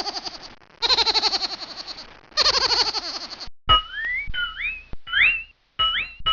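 Old cartoon sound effects: a rapidly pulsing, boing-like tone that falls in pitch, played three times. About three and a half seconds in, it gives way to a run of quick rising whistle swoops.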